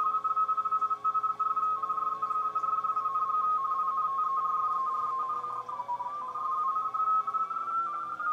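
Radio teletype (RTTY) signal from the Drake 2B receiver's speaker: two close audio tones, mark and space, switching rapidly back and forth. About six seconds in, their pitch dips and then settles slightly higher as the receiver is retuned to bring the tones onto the decoder's mark and space frequencies.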